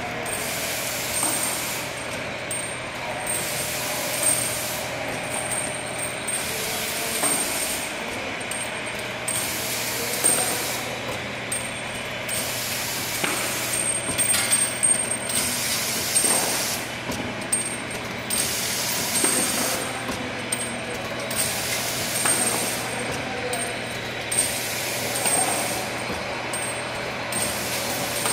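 Pneumatic preprocessor machine cycling: compressed air hisses on and off about every two seconds as its cylinders stroke, with knocks of the steel tooling, over the steady hum of a machine hall.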